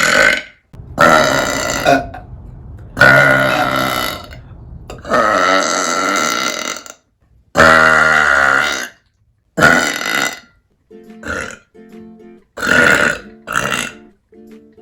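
A woman burping loudly, about nine deep burps one after another, several drawn out to a second or two and the later ones short. A light plucked-string tune comes in underneath about eleven seconds in.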